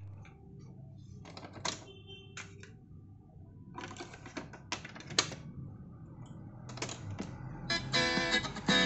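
Plastic clicks and clatter of a vintage UNION boombox's cassette deck as a cassette is put in and the deck is closed and worked, a few sharp clicks at a time. Near the end, guitar music starts playing from the tape.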